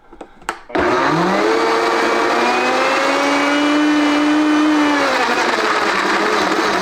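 A couple of clicks, then a Vitamix VM0197 blender starts up under a second in and runs at speed blending a smoothie, its motor pitch rising as it spins up and then holding steady. It runs without the grinding of a failed part, on a freshly replaced drive socket.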